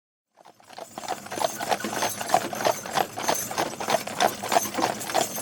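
Horse-drawn carriage: the horse's hooves clip-clop in a steady rhythm of about three strikes a second over a continuous rolling noise. It fades in after about half a second.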